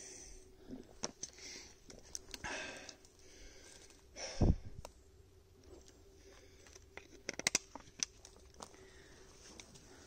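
A hiker's footsteps and gear rustling on a trail: irregular crunches, scuffs and clicks, with one heavier thump a little before halfway.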